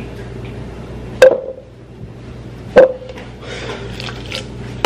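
Carbonated energy drink poured from an aluminium can into a plastic tumbler, fizzing, with two sharp clinks with a short ring about a second and a half apart before the fizz grows near the end.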